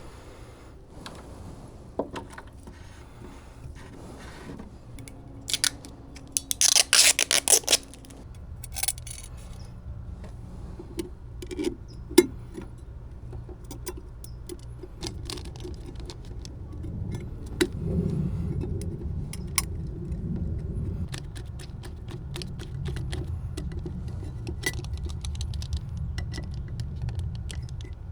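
Scattered clicks and clatter of small hard objects being handled, with a quick rattling run about seven seconds in and a low rumble in the second half.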